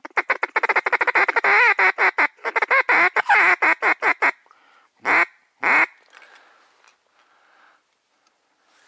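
Ducks quacking: a rapid run of quacks for about four seconds, then two loud single quacks half a second apart.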